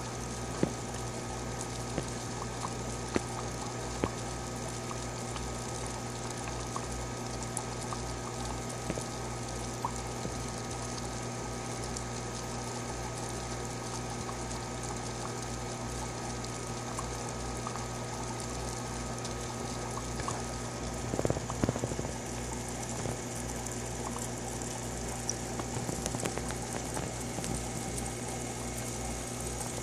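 Aquarium filter pump running steadily: a low hum under a constant trickle of water. A few sharp clicks come in the first few seconds, and there is a brief louder rustle about two-thirds of the way through.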